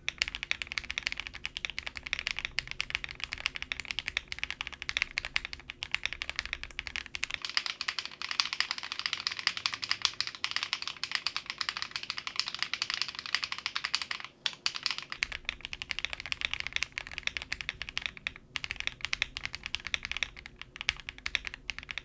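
Fast, continuous typing on a Zoom65 mechanical keyboard with lubed Akko Jelly Silver linear switches in a polycarbonate plate with no PE sheet, making a dense clatter of keystrokes. The keycaps are Akko ASA-profile PBT, except for a stretch in the middle typed on GMK Red Samurai keycaps.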